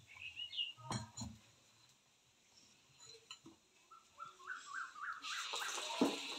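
Steel spoon clinking against a steel bowl while potato slices are dipped in bhaji batter, with a quick run of short high chirps. About five seconds in, hot oil starts a steady sizzle as a battered potato slice goes into the kadhai to deep-fry, with a knock just after.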